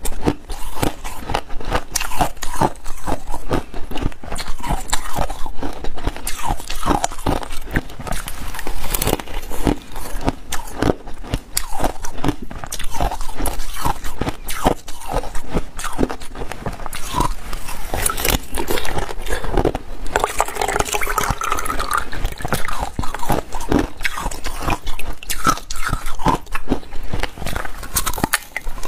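Hard ice frozen in a plastic bottle being bitten and chewed close to a clip-on microphone: many crisp crunches in quick succession.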